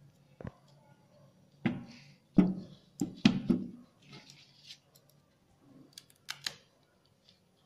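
A kitchen knife cutting the stalk from a large taro (arbi) leaf on a stainless steel plate: a series of sharp knocks and clinks, loudest about two and a half to three and a half seconds in, then softer clicks and leaf crinkling.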